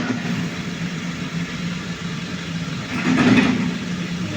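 Engine of a grapple loader lifting oil palm fruit bunches, running steadily with a low hum, and a louder noisy stretch about three seconds in.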